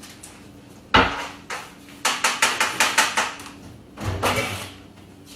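Kitchen clatter of hard items knocking on a counter: one loud knock about a second in, a quick run of about eight knocks, then another thump.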